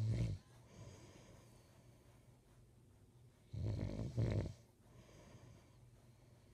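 A man snoring in his sleep: the end of one loud, low rattling snore at the very start, then another about three and a half seconds in lasting about a second, with quieter breathing between.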